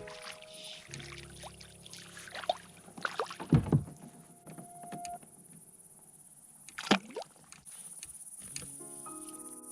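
Background music with held chords, broken by a few sharp knocks and thumps: a cluster a little past halfway through the first half, and one more about two-thirds of the way in.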